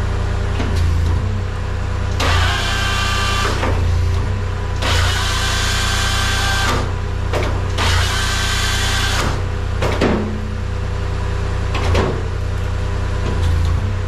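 Tracked skid steer's engine running steadily while the hydraulics of a Halverson HWP 120 firewood processor attachment are worked by remote. Three stretches of louder hissing whine, each a second or more long, come about 2, 5 and 8 seconds in, with short clunks between them as functions start and stop.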